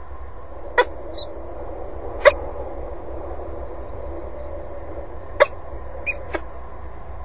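Peregrine falcon giving short, sharp single call notes, five in all and irregularly spaced, with two closer together near the end, over a steady low hum.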